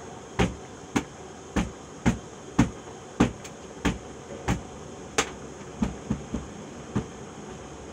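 Metal loaf tin full of cake batter knocked down on a folded cloth over a stainless steel drainboard, about fourteen knocks at roughly two a second, stopping near the end. It is being tapped to level the batter and knock out air bubbles before steaming.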